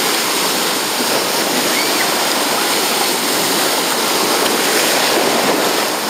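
Ocean surf: waves breaking and washing through shallow water, a steady rushing noise.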